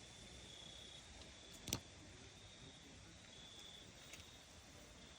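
Near silence with faint night insects trilling, a steady high thin tone that swells and fades, and one sharp click about a second and a half in.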